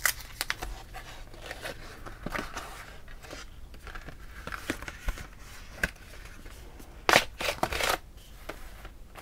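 Cardboard packaging being opened by hand: rustling, scraping and small clicks as the taped box flap is worked open, with a louder burst of scraping about seven seconds in as the die is pulled out of the box.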